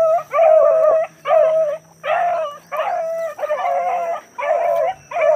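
Hunting hounds baying on a scent trail: a quick run of about eight drawn-out, ringing calls, each under a second, as they work a rabbit through the cover.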